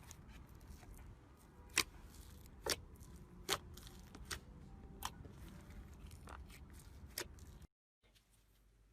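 Slime being squeezed and worked by hand, with a series of sharp, irregular popping clicks. The sound drops out completely near the end, then returns quieter.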